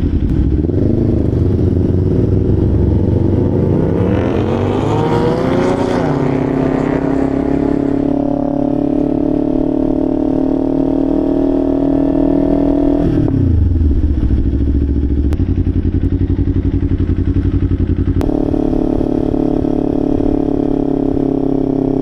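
2025 Kawasaki Ninja 500's parallel-twin engine through a Leo Vince LV Corsa exhaust, under way. The engine pitch rises for a few seconds as the bike accelerates, then holds steady. About 13 seconds in the revs drop back low, and they climb to a steady pitch again about 18 seconds in.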